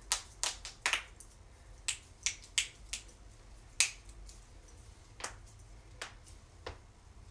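A person cracking their own joints: a string of about a dozen sharp pops at uneven intervals, the loudest about four seconds in.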